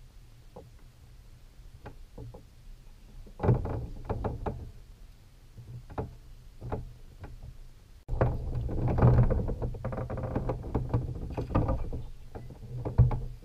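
Handling noise on a plastic sit-on-top kayak: scattered clicks and knocks, thickening into a run of dense clattering with low rumble about eight seconds in, and a sharp knock near the end.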